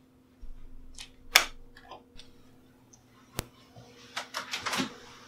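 A wall light switch clicking, then a few other sharp clicks and soft rustling of bedding near the end, over a faint steady hum.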